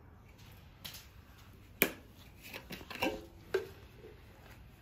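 A few sharp knocks and clicks of objects being handled on a workbench, the loudest about two seconds in, with a brief ringing tone after a knock around three seconds.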